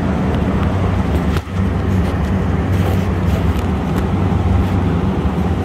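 Steady low drone of running machinery, a hum of evenly spaced low tones under a broad even noise, with a few faint clicks.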